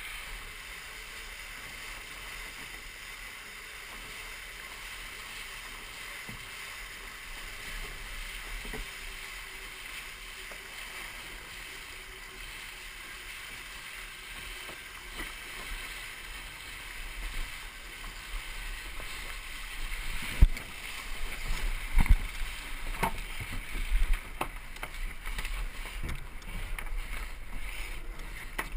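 Water rushing past a Musto Skiff's hull under sail, with wind on the microphone, heard as a steady hiss and low rumble. Two-thirds of the way through the rush grows louder and a handful of sharp knocks come within a few seconds.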